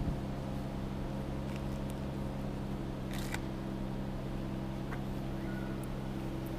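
Steady low hum of an idling car engine, heard from inside the car, with a couple of faint clicks about three seconds in.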